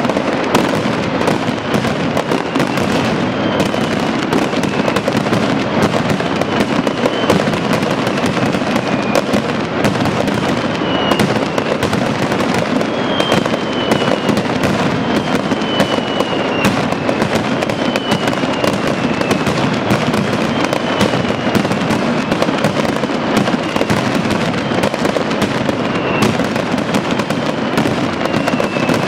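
Mascletà: a dense, unbroken barrage of firecrackers bursting from the strings hung across the ground. Thin falling whistles recur about every second and a half above the crackle.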